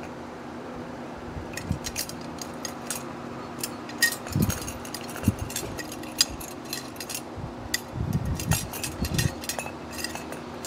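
Loose spokes clinking and rattling against each other and the wheel hub as they are swung into position during wheel lacing. There are many irregular light clinks, with a few dull knocks in the middle and near the end.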